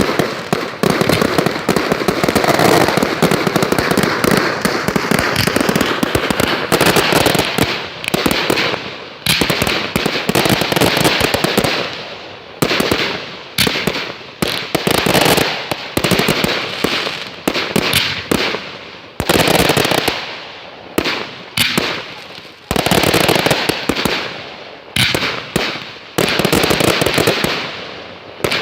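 Fireworks display: a dense barrage of bangs and crackling for about the first twelve seconds, then separate loud bangs every second or two, each trailing off in a fading rumble.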